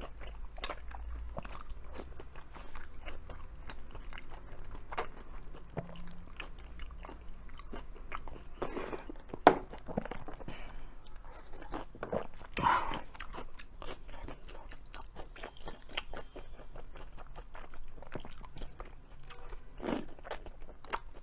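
Close-up sound of a person biting and chewing blood sausage dipped in sauce: a steady run of irregular wet mouth clicks and chewing, with one sharper, louder bite about nine and a half seconds in.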